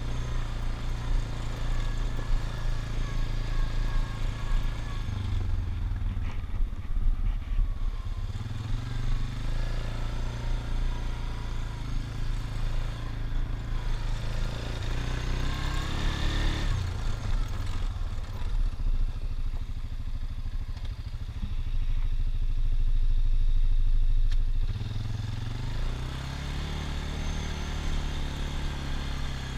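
ATV engine running as the quad travels over a dirt trail, heard from the rider's helmet; the engine note shifts up and down several times as the throttle is opened and eased off.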